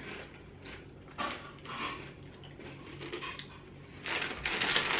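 Scattered household handling noises: brief rustles and light clatters, growing busier and louder near the end.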